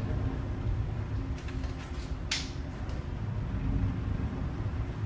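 Steady low rumble of a container ship under way, heard from the bridge, with a faint steady hum. A sharp click about two seconds in, with a few smaller clicks before it.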